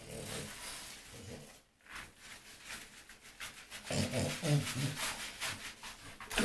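Kong Zoom Groom rubber brush and hands scrubbing shampoo lather into a wet French bulldog's short coat: quick, repeated rubbing strokes. Irregular low sounds join in from about four seconds in.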